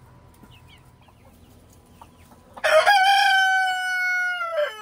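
A rooster crowing once, loud: one long call that starts suddenly just past halfway, holds for about two seconds and drops in pitch as it ends.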